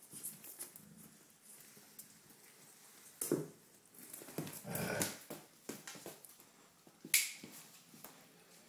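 Four-week-old Doberman Pinscher puppies feeding: scattered sharp clicks and small sounds as they eat, with a louder click about three seconds in, a longer stir of noise around five seconds, and another sharp click near seven seconds.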